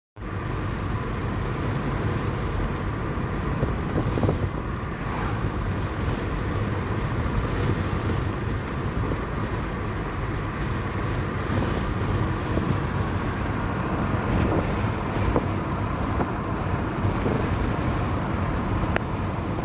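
Steady road and engine noise of a moving car.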